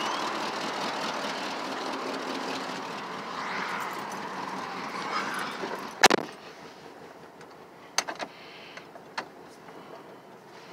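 Car door of a 1983 Buick LeSabre estate wagon shutting with one loud knock about six seconds in, after which the steady rushing noise drops away. Then a few light clicks and a key jingle inside the cabin.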